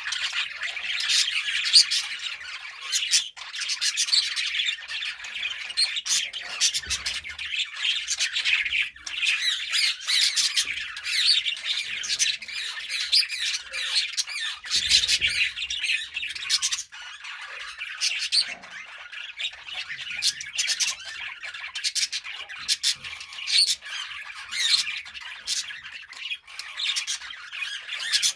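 Several budgerigars chirping and chattering without pause, many high warbling calls overlapping, with sharper squawks mixed in.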